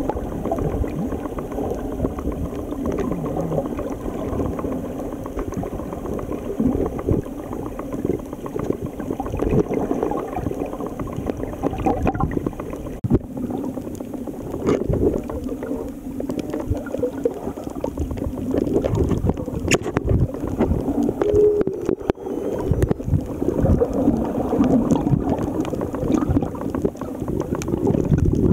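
Muffled sloshing and gurgling of water around a camera held underwater, with a few faint clicks.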